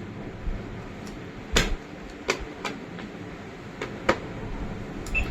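Scattered short clicks and knocks, about seven of them, the loudest about a second and a half in, over a steady background hum.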